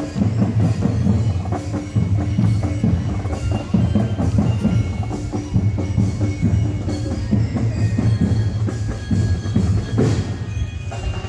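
Sinulog festival street-dance music: dense, driving drumming with short high pitched melody notes ringing over it, played loud and without a break.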